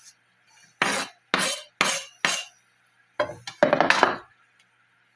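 Kitchen clatter: four sharp knocks about half a second apart, then a quicker cluster of knocks, of utensils and cookware striking a frying pan and other hard kitchen surfaces.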